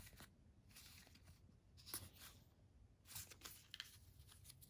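Faint rustles and soft taps of game cards being handled and set down, in a few short bursts.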